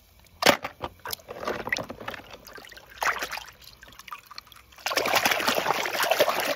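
Water splashing and sloshing in a plastic tub as a hand dunks and pushes a small die-cast toy car through foamy water: a sharp splash about half a second in, a few scattered splashes, then steady churning slosh for the last two seconds or so.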